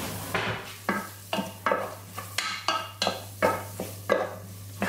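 Wooden spoon stirring chopped shallots and butter in a saucepan as they begin to fry, scraping the pan in short strokes about two to three times a second.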